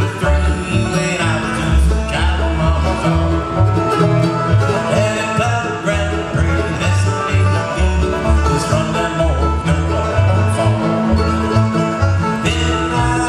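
Bluegrass band playing live on banjo, mandolin, acoustic guitar and upright bass, the plucked bass keeping a steady beat under the picked strings.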